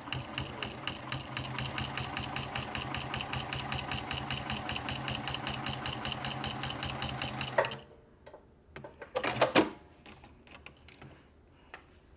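Juki TL2010Q straight-stitch sewing machine running steadily with its walking foot fitted, stitching a long row of topstitching through bag fabric layered with foam, with a fast even clatter of stitches. It stops about three-quarters of the way through, and a few loud clicks and a brief rustle follow.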